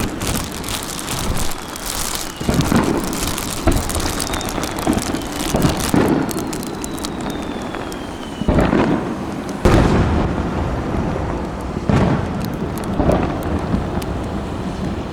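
Aerial fireworks shells bursting in a series of deep booms, about seven in all, with the heaviest ones near the middle. Crackling salutes fill the first half, and a thin whistle slowly falls in pitch through the first two-thirds.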